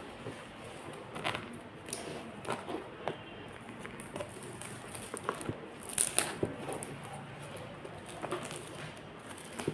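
Scattered handling sounds from a plastic food tub as its sealing tape is cut with small scissors: irregular light clicks, taps and rustles, with a cluster of sharper clicks about six seconds in.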